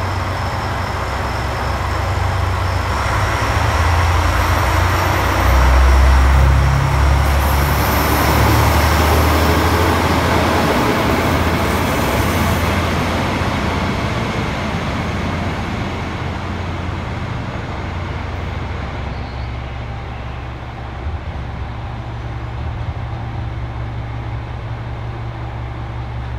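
JR Shikoku 1000 series diesel railcar pulling out of the station: its engine revs up under load, loudest a few seconds in, then the sound fades as the railcar runs away down the line.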